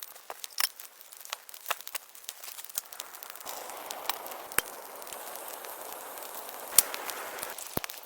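Campfire crackling, with irregular sharp wood pops throughout and a steady hiss rising in from about three and a half seconds in and dropping away near the end.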